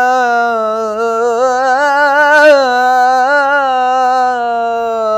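A young munshid singing an Islamic ibtihal solo and unaccompanied, holding one long melismatic note with a wavering ornament that steps down in pitch about halfway through.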